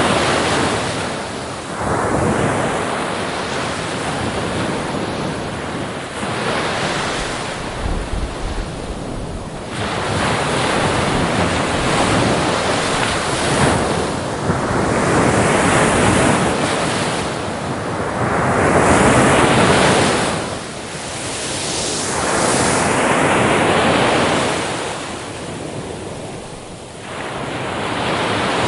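Sea waves breaking on the shore, the surf swelling and washing back in repeated surges every few seconds, with wind on the microphone.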